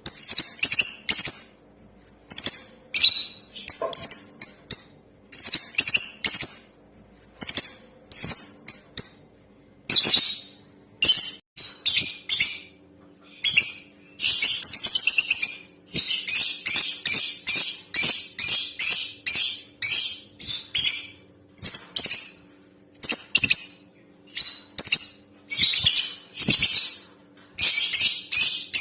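Lovebird calling: sharp, high-pitched chirps in quick clusters, with a longer unbroken chattering run about halfway through. A faint steady hum lies underneath.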